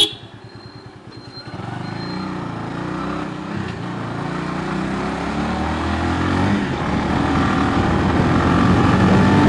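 Motorcycle engine pulling away from low speed and accelerating, its note rising and getting steadily louder. It runs with a slow low pulse for about the first second and a half before the throttle opens.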